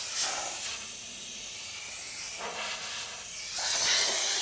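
Compressed air hissing from an air blow gun as it blows dust out from inside a car body panel. The blast swells louder toward the end.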